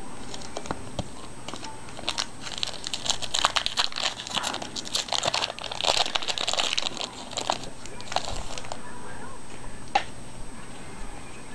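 Foil wrapper of a trading-card pack being torn open and crinkled: a run of crackly rustling from about two seconds in until near nine seconds, then a single sharp click.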